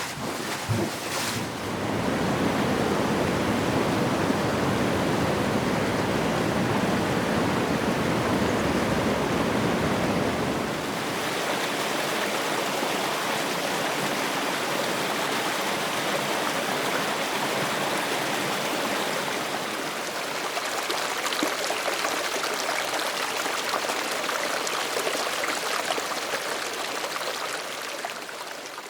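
Rushing water from waterfall and stream recordings: a full, deep-sounding flow for about the first ten seconds, then a sudden change to a brighter, lighter-running flow that fades out at the end.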